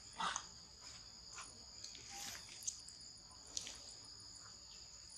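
A steady, high-pitched drone of insects on two pitches, with a few short clicks and rustles, the loudest just after the start.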